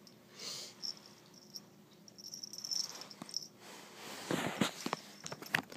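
Faint high tinkling from a kitten's collar, jingling in short bursts as she scuffles, followed near the end by a run of knocks and rustles.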